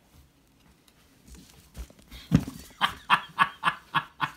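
A thump about two seconds in, then a voice giving a rapid run of short, loud pulses, about four a second.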